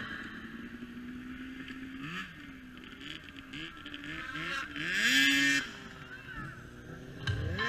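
Snowmobile engine revving up and down in quick throttle blips, swelling loudest about five seconds in as the sled launches into the air, then dropping away.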